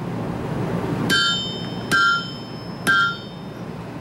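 Three ringing hammer blows about a second apart, driving a red-hot steel bar down onto a hot-cut hardy in the anvil to cut partway into it and separate the rose's petals. Each strike leaves a short, high, bell-like ring from the anvil and hardy.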